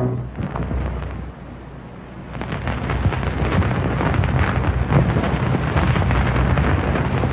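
Radio sound-effect crash: a long, rumbling clatter of many knocks and bangs that starts about two seconds in and keeps going, standing for someone falling off a ladder.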